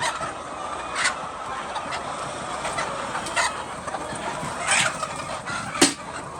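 Chickens clucking over a steady background hum, with about five short sharp sounds scattered through, the loudest near the end.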